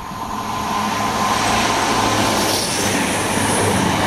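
Virgin Trains Voyager diesel multiple unit passing at speed: a loud, steady rush of wheel and air noise over a low hum. It peaks about three seconds in and begins to fall away as the train goes by.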